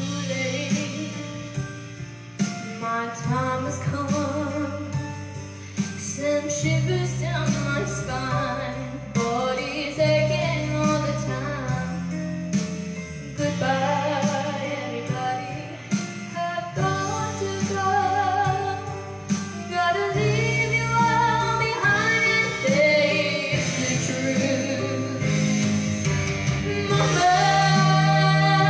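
A woman singing a song with vibrato over held keyboard chords that change every few seconds.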